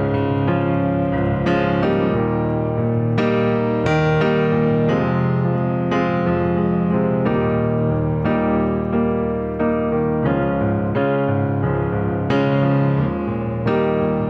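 Background piano music, with notes and chords struck roughly once a second.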